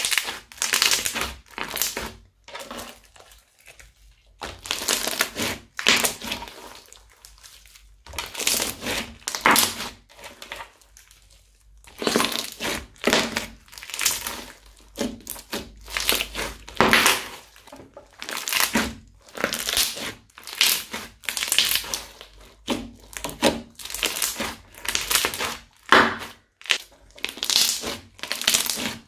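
Bead-filled crunchy slime being squeezed, pressed and folded by hand, crackling and squishing in repeated bursts about once a second, with a few short lulls.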